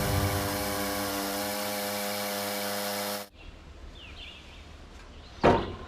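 Background guitar music ending on a held chord that cuts off abruptly about three seconds in. Quiet outdoor background sound follows, with a single sharp knock near the end.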